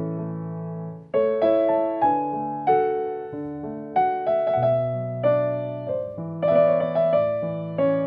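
Background music: piano, notes struck every half second or so and fading away, over held low notes; a brief dip about a second in before a new phrase begins.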